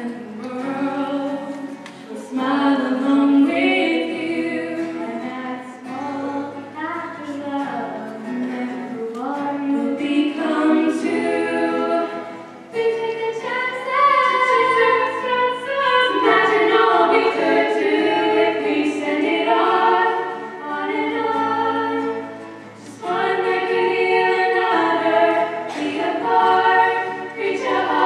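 Three female voices singing a song together in harmony into microphones, accompanied by a strummed acoustic guitar.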